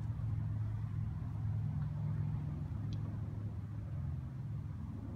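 Golf cart running, a steady low hum that eases off slightly near the end, with one short tick about three seconds in.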